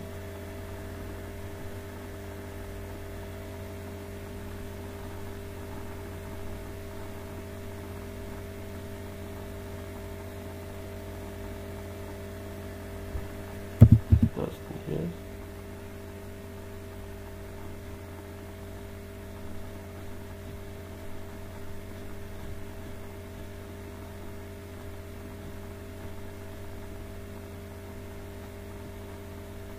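Steady electrical mains hum with a faint hiss. About halfway through, a short cluster of louder low knocks breaks in.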